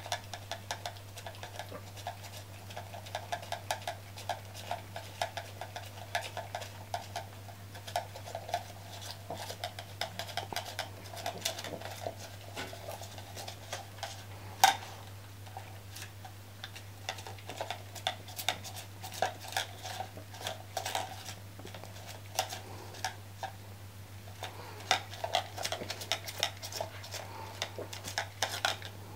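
A small Chihuahua licking out an empty plastic cream cup and pushing it over a tiled floor: a busy run of light clicks, taps and scrapes of the plastic cup on the tiles along with licking, with one sharper knock about halfway through. A steady low hum lies underneath.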